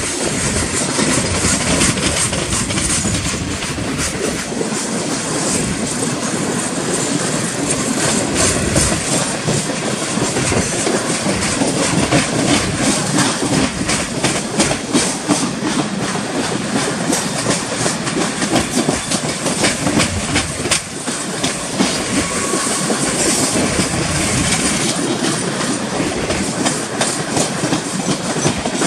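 Steel wheels of CSX coal hopper cars rolling past, a steady loud rumble with frequent clicking as the wheels pass over the rail joints.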